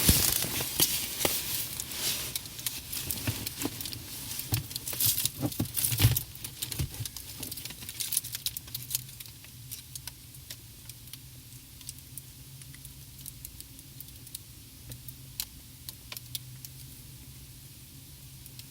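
Mylar blanket spread across a car's front window crackling and clicking in quick irregular bursts. The bursts are dense for the first eight seconds or so, then thin out to scattered single clicks. A faint low steady hum runs underneath.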